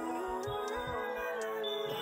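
Background music: sustained tones with a melody line that glides up and down.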